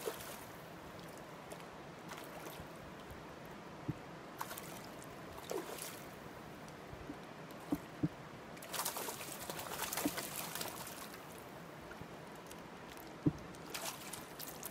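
Steady flow of river water with a few brief splashes and knocks, and a longer stretch of splashing about two-thirds of the way through, as a hooked trout is played to the net.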